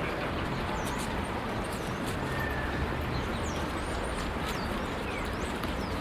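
City park ambience: a steady wash of distant traffic with birds chirping, many short high chirps scattered throughout.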